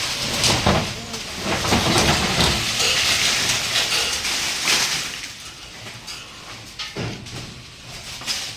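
Cut tree branches coming down, a loud rustling crash of leaves and wood with knocks in it for about five seconds, then dying away, with a single knock about seven seconds in.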